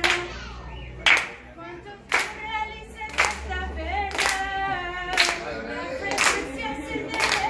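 Hand claps in time, about one a second, keeping a steady beat while voices sing over them without instruments.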